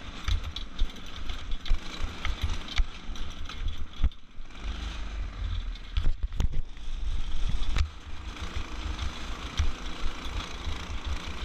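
Off-road go-kart's small engine running as it drives over a bumpy dirt trail, with wind buffeting a helmet-mounted microphone and scattered knocks and rattles from the bumps. The sound drops briefly about four seconds in.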